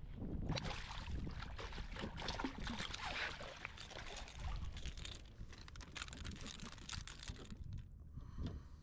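Water splashing and sloshing in a dense, irregular run for about seven seconds, then easing off near the end.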